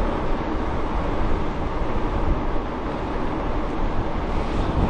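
Wind noise on the microphone of a moving e-mountain bike on a road: a steady, heavy rushing rumble with no engine tone.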